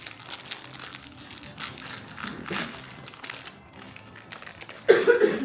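Packaging being handled: a run of crinkling and rustling, over faint background music. A short, much louder pitched sound comes in near the end.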